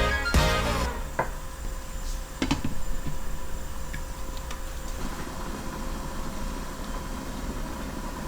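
A few light clicks and knocks over a steady low hum, typical of kitchen utensils against a pot, after a music track stops within the first second.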